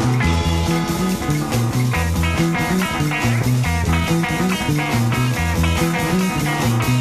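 Instrumental break of a late-1960s psychedelic rock song: guitar over a repeating bass line and steady drums.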